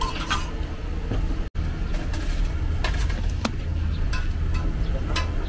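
Steady low mechanical hum in a food-truck kitchen, with scattered light clicks and taps of cooking utensils at a griddle. The sound cuts out for an instant about one and a half seconds in.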